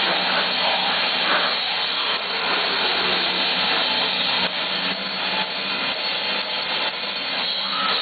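Live rock band playing loud: electric guitars, bass guitar and drums, with a singer at the microphone, heard as a dense, harsh, unbroken wash of sound.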